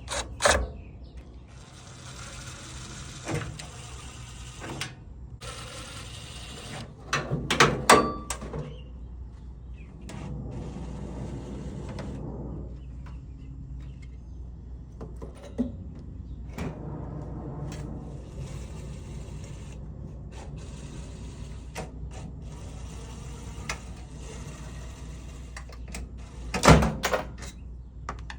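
Microwave oven being dismantled for scrap: knocks and clanks of its metal casing and parts, loudest near the end, with stretches of steady noise a few seconds long between them.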